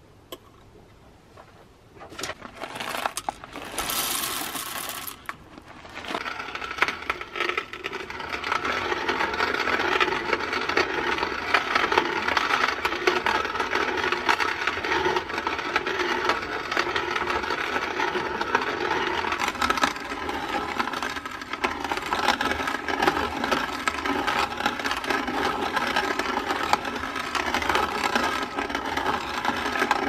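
Coffee beans poured into the brass hopper of a hand-crank box coffee grinder, then from about six seconds in the crank turns steadily and the burrs crunch through the beans in a continuous grinding rattle.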